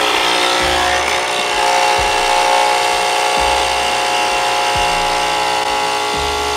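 Capsule espresso machine's pump buzzing steadily while it brews espresso.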